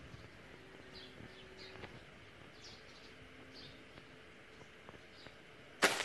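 Small birds chirping faintly in short calls over steady outdoor background noise, with one sudden loud burst near the end.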